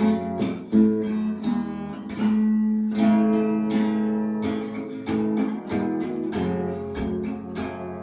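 Acoustic guitar strumming chords, an instrumental passage of the song between sung lines.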